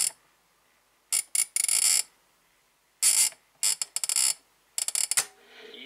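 Alarm buzzer of a DYN DS-4547 flip clock radio, sounding in about six short, uneven bursts of a harsh, high-pitched buzz.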